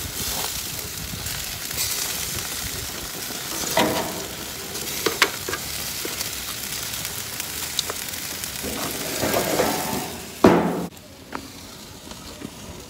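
Meat sizzling on a gas grill, with a few sharp clicks and clatters of handling. A loud clatter comes about ten and a half seconds in, after which the sizzling turns much quieter.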